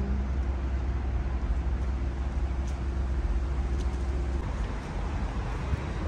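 City street traffic noise, with a nearby vehicle engine's low steady hum and a fainter tone above it that stop together about four and a half seconds in.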